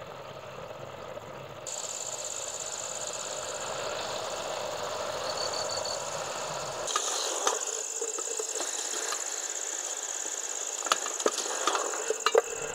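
Crickets and other night insects chirping in a steady high trill that sets in about two seconds in and grows louder about halfway through, over a low steady hiss. A few sharp clicks come near the end.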